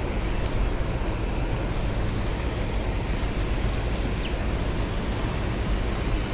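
Steady rushing noise with a heavy low rumble and no distinct events.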